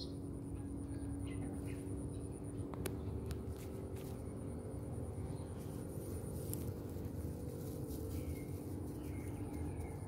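Outdoor natural ambience: scattered short bird chirps over a steady high-pitched insect drone and a low rumble, with a couple of sharp clicks.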